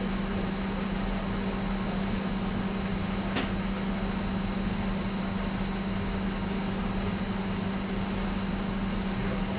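Steady hum of laboratory machinery, a constant low tone with a faint high whine above it; a single faint tick about three seconds in.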